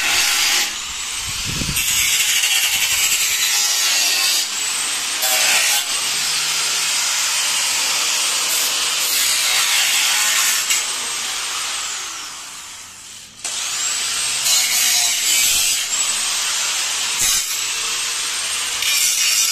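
Angle grinder working car-body sheet steel in several long runs. Its motor whines up to speed at each start and winds down and stops about thirteen seconds in, then starts again.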